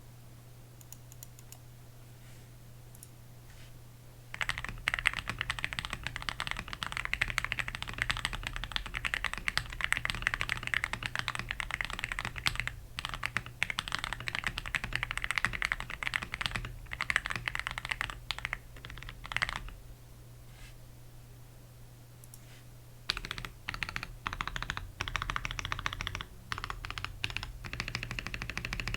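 Typing on a Gas67 mechanical keyboard with lubed and filmed Gateron Yellow linear switches, XDA keycaps, and a case damped with foam, tape and polyfill, in a fast, dense run of keystrokes. The typing starts about four seconds in, stops for about three seconds past the middle, then resumes, over a faint steady low hum.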